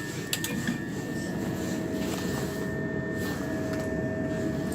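Steady hum of a Class 375 Electrostar electric train standing still, its ventilation fans and electrical equipment running, with a low rumble under two thin steady whining tones. A couple of faint clicks come just after the start.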